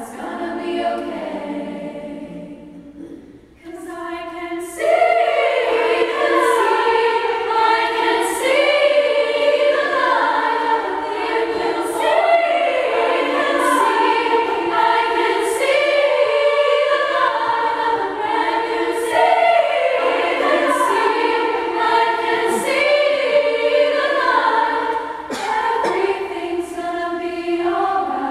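Women's choir singing in parts, sustaining long notes. The sound thins to a soft passage a few seconds in, then the full choir comes back in loudly and carries on at full voice.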